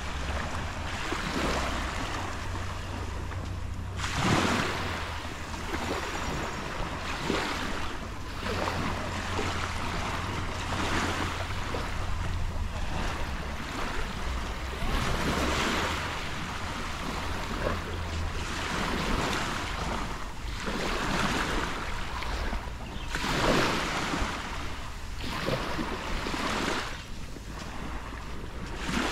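Sea waves breaking and washing up a sandy beach, a fresh swell every three or four seconds, over a steady low rumble of wind on the microphone.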